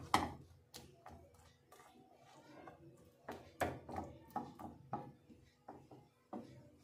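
Silicone spatula scraping and knocking in a nonstick pan as peanuts are stirred through melted sugar caramel, giving a series of irregular scrapes and light taps.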